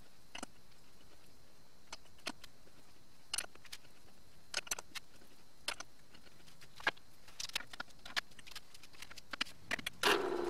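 Scattered light metallic clicks and knocks from hand work on a TV-16 lathe's chuck and the tube held in its steady rest. About ten seconds in, the lathe motor switches on and runs with a steady hum.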